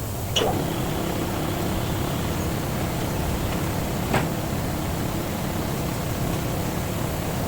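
Steady low machine hum, with two short sharp clicks, one about half a second in and one about four seconds in.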